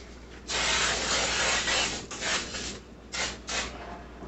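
Aerosol cooking spray hissing as a baking dish is greased: one long spray of about a second and a half, then several short bursts.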